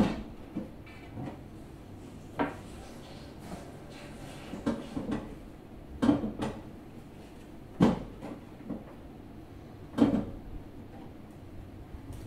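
A 43-inch flat-screen TV clunking and knocking against its wall-mount bracket as it is slid sideways by hand to center it: a string of short, sharp knocks a second or two apart.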